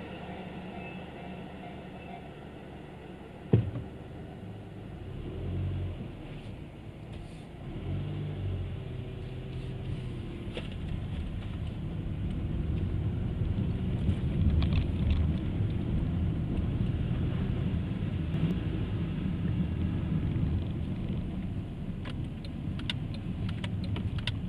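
Car pulling away and driving on: low engine and road rumble that swells after a sharp knock a few seconds in, with a few light clicks near the end.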